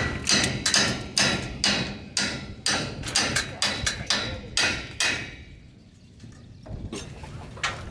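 Repeated hammer blows, about two or three a second, as an old corrugated metal roof is stripped. The blows stop for about a second and a half past the middle, then start again.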